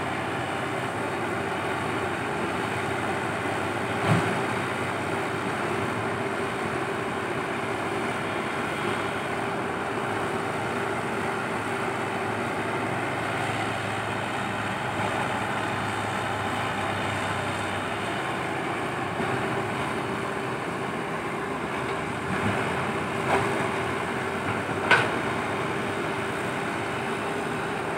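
Komatsu PC120-5 hydraulic excavator's diesel engine running steadily under working load as the machine digs and swings. A few sharp knocks stand out, one about four seconds in and two near the end.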